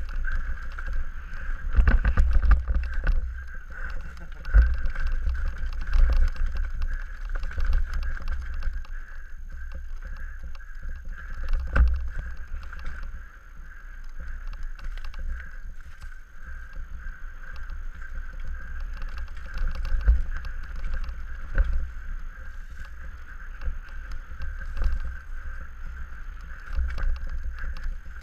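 Scott Gambler downhill mountain bike running fast over rough forest singletrack, heard from a helmet-mounted GoPro: a continuous rumble of tyres on dirt, wind on the microphone, and frequent knocks and rattles as the bike hits roots and rocks, over a steady high hum.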